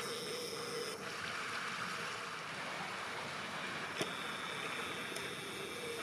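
Steady rush of river water. A thin high camera zoom-motor whine sounds for about the first second and again from about four seconds in, with a single click at about four seconds.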